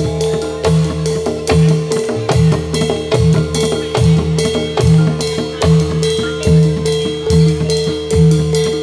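Live Javanese jathilan accompaniment music: drums beating a steady pulse of about one heavy stroke a second with quicker strokes between, over a steady held tone.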